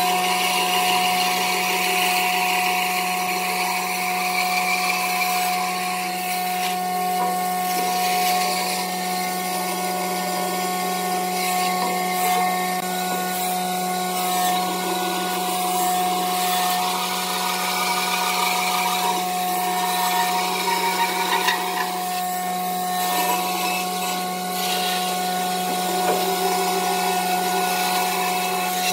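Band saw running and ripping lengthwise through a wooden board: a steady machine hum with a constant higher tone over the hiss of the blade cutting.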